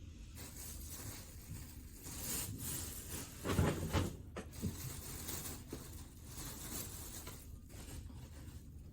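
Handling of takeout food containers and packaging: rustling and scraping, with a louder bump and scrape about three and a half seconds in.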